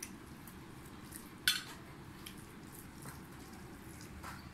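Occasional light clinks and taps of ceramic plates and bowls as people eat by hand at the table, with one sharper clink about a second and a half in, over a faint low hum.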